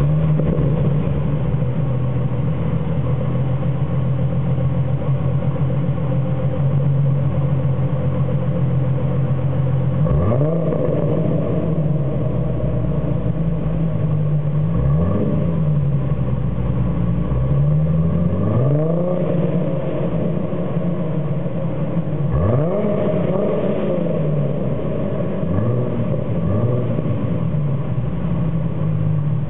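2008 Ford Mustang's 4.0-litre V6 idling steadily just after starting, then blipped through short revs several times from about a third of the way in, each rising and falling back to idle.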